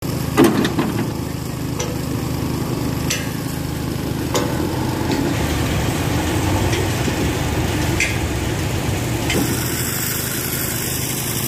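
JCB 3DX backhoe loader's diesel engine running steadily, with a few sharp knocks and clanks over it, the loudest near the start.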